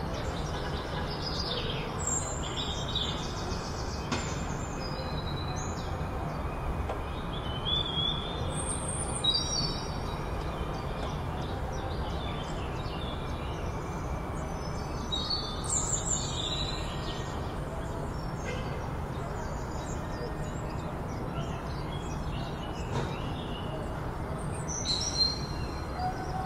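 Small birds chirping in short, scattered bursts of high notes over a steady low rumble of outdoor background noise.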